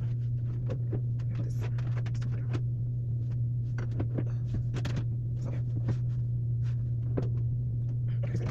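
A steady low hum with many small, light clicks and taps scattered through it.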